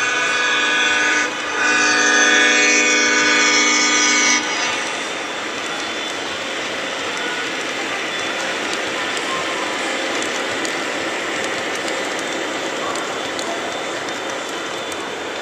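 Lionel O-gauge model diesel locomotive sounding its horn: one blast breaks off about a second in and a longer one ends about four seconds in. Then comes the steady rolling noise of the locomotives and loaded coal hopper cars running over the three-rail track.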